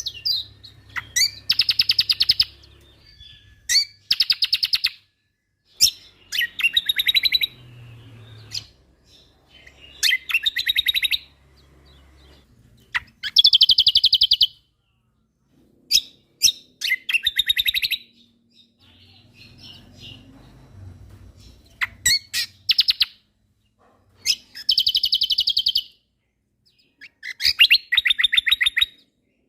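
Cucak kombo (kecial kombok of Lombok) songbird singing in full, busy song: repeated phrases of sharp notes and fast rattling trills, one every few seconds.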